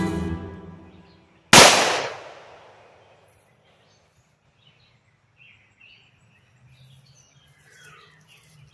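A single loud gunshot that rings out and dies away over about a second and a half, then faint bird chirps over quiet outdoor air.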